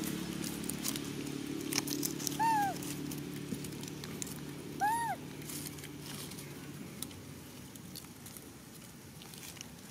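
Young macaque giving two short coo calls about two and a half seconds apart, each a quick rise and fall in pitch. A faint low hum fades out partway through, and light rustling clicks sound throughout.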